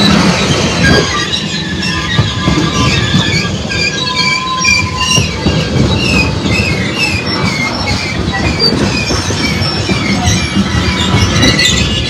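Freight train tank cars rolling past close by: a steady rumble of steel wheels on rail, with short high-pitched squeals repeating over it.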